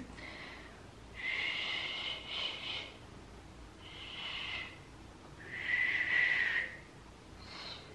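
A woman blowing through pursed lips, trying and failing to whistle: three breathy blows with only a faint thin tone in them, the last one the loudest.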